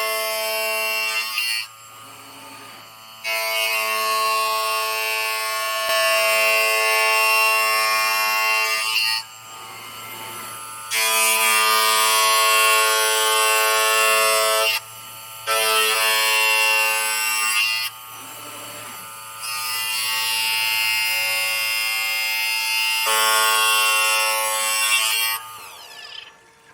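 Electric whine from the drives of a 5-axis CNC stone bridge saw: steady layered tones start and stop in spells of a few seconds, with a low hum in the pauses between them.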